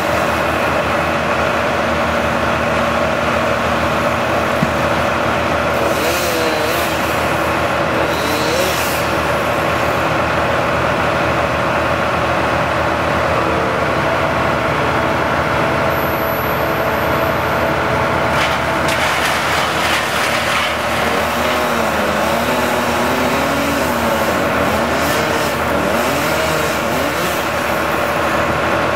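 Bucket truck's engine running steadily, its pitch rising and falling several times, with a few brief noisy bursts over it.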